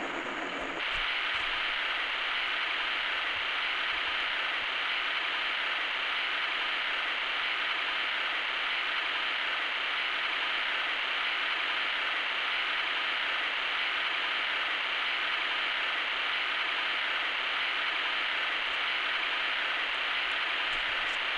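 Plain white noise played through the small built-in speaker of a cheap Soothing Sounds 20 clock radio: a steady, harsh hiss that could be taken for heavy rain. It comes in at the start and fills out fully just under a second in.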